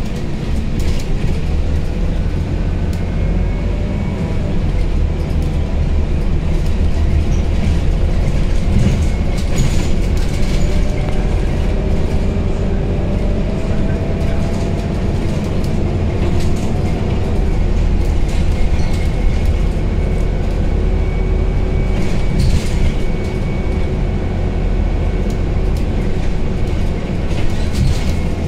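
Scania Citywide 12LF CNG city bus on the move, heard from inside the cabin: its Scania OC09 natural-gas engine and the road make a steady low rumble. A faint whine rises in pitch a few times, and short rattles come from the cabin now and then.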